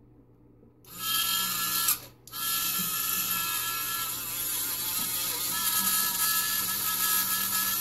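Small handheld rotary tool spinning a felt polishing wheel loaded with cerium oxide slurry, polishing a snowflake obsidian cabochon: a steady high-pitched whine that starts about a second in, cuts out briefly near two seconds, then runs on.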